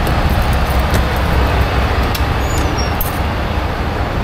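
Diesel semi-truck engine idling with a steady low drone, and a couple of faint clicks about two and three seconds in.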